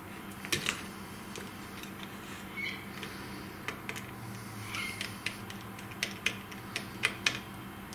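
Small screwdriver working a wire into a plastic screw terminal block: irregular sharp clicks and light scrapes, with a couple of brief squeaks.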